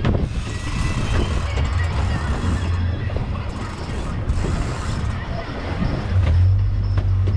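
Boat engine running steadily under wind and water hiss, the engine hum getting louder about six seconds in.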